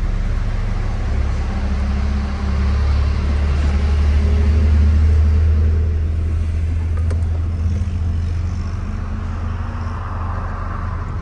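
Nissan pickup's engine running with a steady low hum that swells a little midway and eases off near the end.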